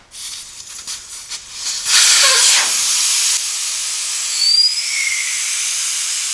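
Air hissing out through the valve stem of a 205/60 R16 car tyre as it is let down to flat, starting after a few small clicks at the valve about two seconds in. The hiss is loudest at first, then settles into a steady rush, with a couple of brief whistling tones near the end.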